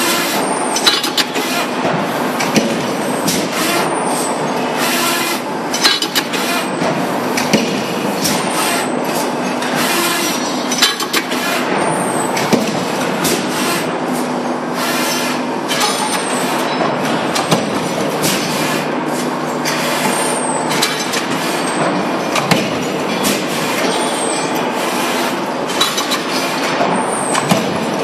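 Punch-press line with Estun gantry sheet-metal feeders running automatically: steady machine noise full of sharp clacks and knocks from the presses and feeder arms, with a short high chirp repeating about every four seconds.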